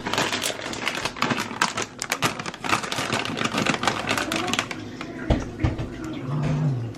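A plastic snack bag of trail mix crinkling and rustling as a hand rummages inside it, a dense rapid crackle for about four and a half seconds. A few soft low thumps follow a little after five seconds.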